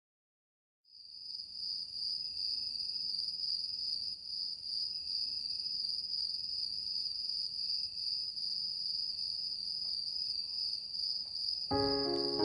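Steady, high-pitched cricket chirring that starts abruptly about a second in. Near the end a louder, lower pitched sound comes in over it.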